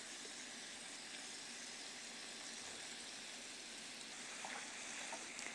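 Faint, steady sizzle from a pot of meat, carrots and chickpeas cooking in butter and oil with a little hot water, as dried currants are tipped in, with a few faint light taps near the end.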